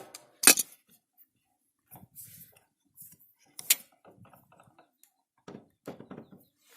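Scattered light metallic clicks and clinks of small metal engine parts and hand tools being handled, with a sharper click about half a second in and another near four seconds.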